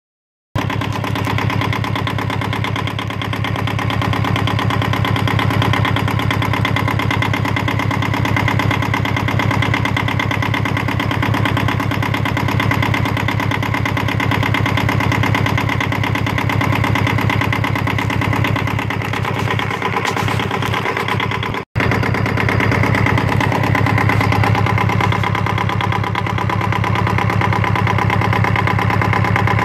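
Yanmar 2GM20 two-cylinder marine diesel engine running at a steady speed on a test run after a service. It breaks off for an instant about two-thirds of the way through.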